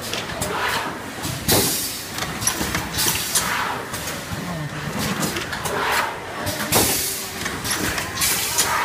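JP-500D blister card packing machine running: steady mechanical clatter broken every few seconds by short sharp hisses of air from its pneumatic cylinders.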